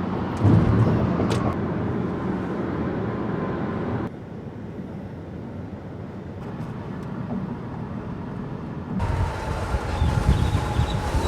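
Vehicle traffic rumbling, with the sound changing abruptly twice: it drops sharply about four seconds in and comes back louder about nine seconds in. A faint steady tone sounds near the end.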